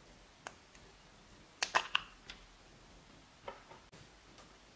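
Sharp little clicks of a hard plastic tomato-shaped makeup container being handled and pulled open, with a quick run of the loudest clicks about two seconds in and a single click about halfway through.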